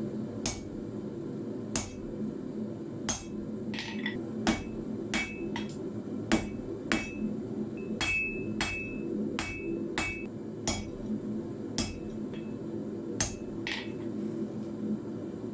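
Hand hammer striking iron on an anvil while forging nails from 8 mm square iron bar: about twenty sharp blows at an uneven pace, some ringing briefly, over a steady low hum.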